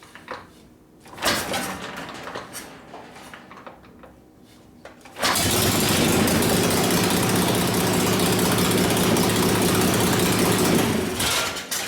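Harley-Davidson Ironhead Sportster V-twin engine catching about five seconds in after some knocking and clatter, running steadily for about six seconds, then dying away near the end. It is running with the choke off while the carburetor is being adjusted.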